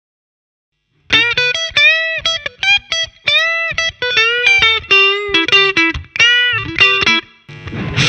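Fender Stratocaster electric guitar playing a single-note lead solo with a clean tone, the Boss DS-1 distortion pedal switched off, starting about a second in. The notes are separate, with string bends and vibrato.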